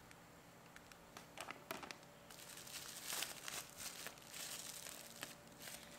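Clear plastic wrapping crinkling as it is handled and pulled off a plastic figure part, thick and continuous from about two seconds in until near the end. A few light clicks come before it.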